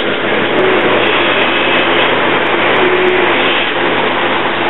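Loud, steady mechanical noise of running machinery, with a constant low hum.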